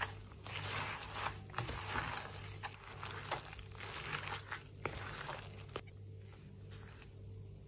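A gloved hand mixing a thick lentil and spinach pakora batter in a plastic bowl: uneven wet rustling strokes with a few sharp clicks against the bowl, dying down about six seconds in.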